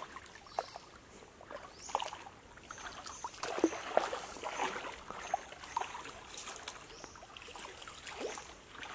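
Water sloshing and trickling, with many small knocks and clicks scattered through it.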